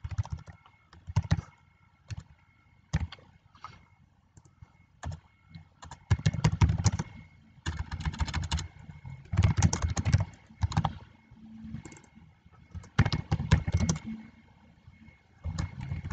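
Typing on a computer keyboard. Scattered single keystrokes over the first few seconds, then quick runs of keystrokes with short pauses between them.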